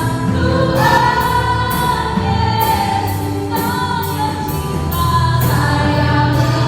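Group of voices singing a worship song together with instrumental accompaniment, long held notes over a steady beat about twice a second.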